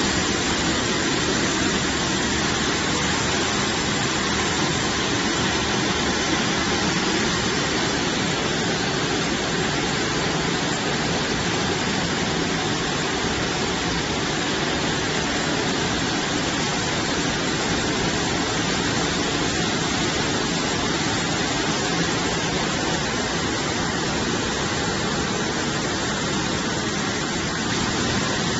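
Poultry washing machine on a slaughter line, running with a steady, even rushing noise.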